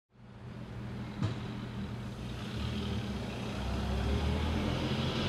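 A vintage car's engine running slowly, fading in and growing steadily louder, with a single sharp click about a second in.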